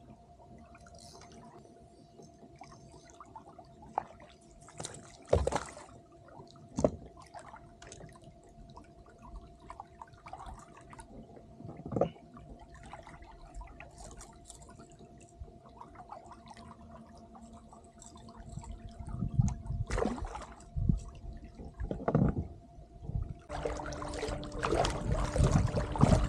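Water splashing and dripping beside a kayak while a hooked striped bass is fought and brought in, with a few sharp knocks. It gets busier and louder over the last several seconds.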